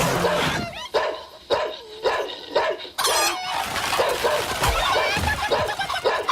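Cartoon animal characters' vocal sound effects: a run of short, dog-like yapping calls that bend up and down in pitch, about two a second, with a high warbling squeal about three seconds in.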